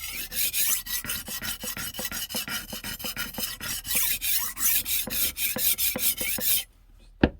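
HORL 2 roller sharpener's grinding disc rasping against the edge of a steel knife as it is rolled rapidly back and forth, about five strokes a second. The rasping stops near the end, followed by a single sharp knock.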